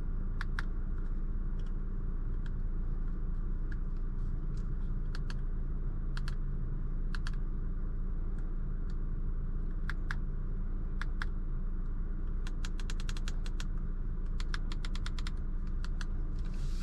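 Clicking of the 2021 Audi Q5's steering-wheel scroll wheel and buttons as the instrument-cluster views are stepped through. Single clicks come every second or two, then two quick runs of rapid clicks come near the end, over a steady low hum in the cabin.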